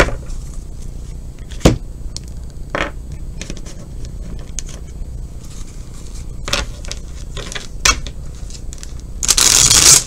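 Tarot cards being handled and shuffled: scattered taps and slides of cards, then a loud crackling rush of cards for most of the last second.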